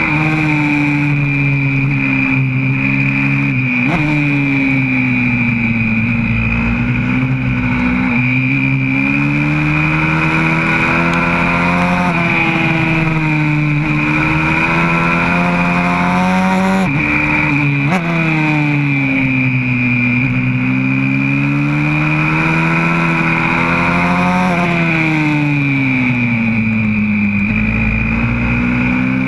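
YCF 125cc single-cylinder four-stroke pit bike engine heard from on board at speed, its note rising and falling over and over as the throttle opens and closes through the corners, with a few abrupt jumps in pitch. A steady high-pitched whine runs alongside it.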